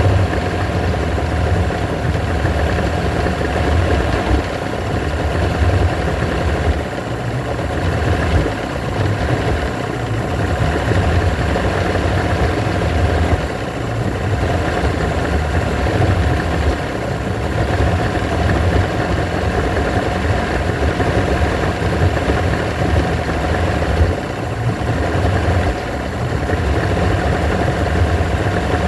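Evinrude 120 hp V4 two-stroke outboard idling rough, its low beat uneven and wavering, easing for moments and then worsening again.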